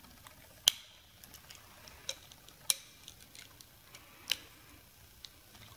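Short sharp plastic clicks and small taps from the body shell of a Hubsan X4 H107L mini quadcopter being handled and pressed back together during reassembly. Four louder clicks fall at irregular intervals among fainter ticks.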